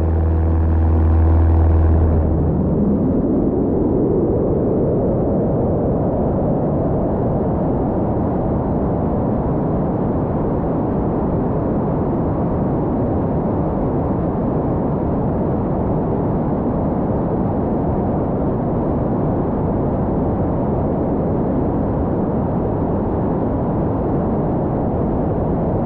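Steady, loud vehicle engine noise. A strong low hum with several steady tones fades about two seconds in, a rising tone follows, and then an even rushing noise continues.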